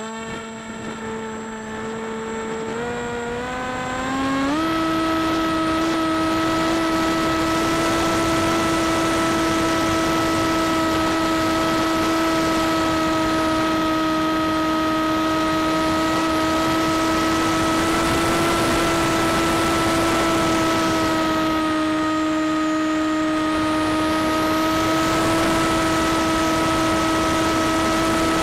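Onboard sound of an AXN RC plane's electric motor and propeller: a steady whine that steps up in pitch twice in the first few seconds as the throttle is opened for takeoff, then holds almost level under power. Wind rushes over the microphone throughout.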